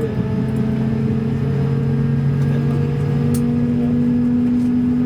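Cabin sound of an Airbus A220-300 airliner: its Pratt & Whitney PW1500G geared turbofan engines running as a steady low drone of several tones, one of which steps slightly up in pitch about three seconds in.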